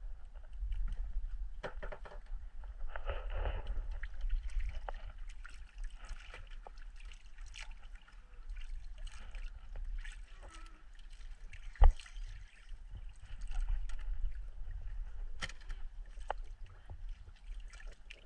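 Water splashing and lapping around a small fishing boat, with scattered knocks from on board and one loud sharp knock about twelve seconds in, over a steady low rumble.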